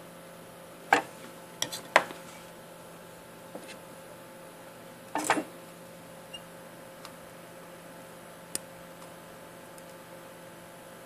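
A few scattered sharp clicks and knocks of hand tools handled on a workbench as the soldering iron is set aside and flush side cutters are brought to the board, over a steady electrical hum.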